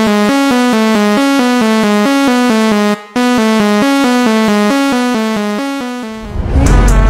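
Electronic backing music: a synthesizer keyboard plays a quick, repeating figure of notes, which breaks off briefly about three seconds in. Near the end a rising swell leads into heavy bass.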